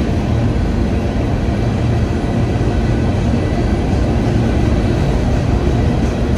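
Empty open-top rock cars of a freight train rolling past: a steady, heavy rumble of steel wheels on the rails, with a faint thin whine above it.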